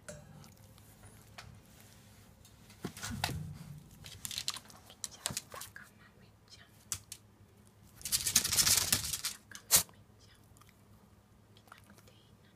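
Scattered light rustles and clicks, with one breathy, noisy burst about eight seconds in that lasts about a second and a half, followed by a single sharp click.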